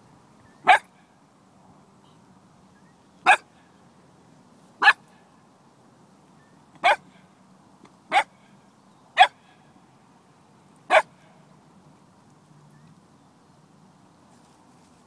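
Cocker spaniel puppy barking: seven short, sharp single barks, a second or two apart.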